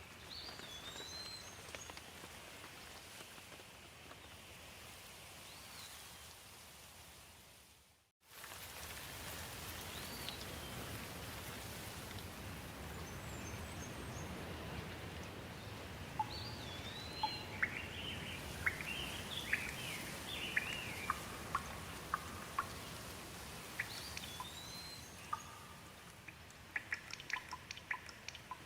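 Steady rain falling, with birds calling over it: a short arched chirp repeated several times and a burst of varied song about two-thirds of the way through. The sound fades briefly to silence about eight seconds in and comes straight back, and near the end there is a run of quick ticks like drips.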